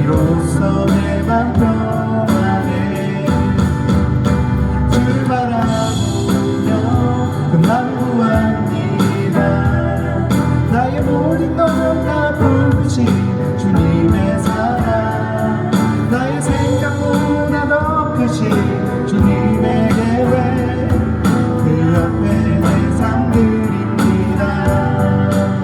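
A live Korean worship song: voices singing with instrumental accompaniment.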